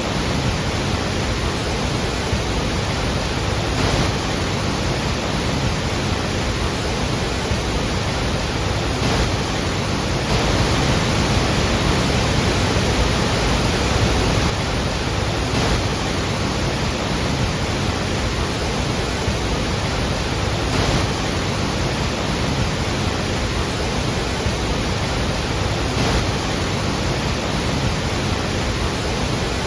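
Iguazú Falls' massive waterfall: a loud, steady roar of falling water, slightly louder for a few seconds near the middle.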